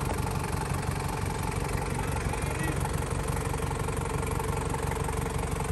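Toyota Land Cruiser Prado's 3.0-litre 1KZ-TE turbo-diesel engine idling steadily, with a fast, even clatter.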